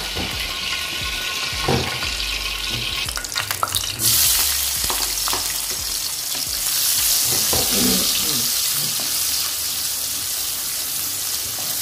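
Chopped shallots, garlic and chilli frying in hot oil in an aluminium wok, stirred with a wooden spatula. A few clicks and knocks come first, then about four seconds in a loud, steady sizzle starts and keeps going.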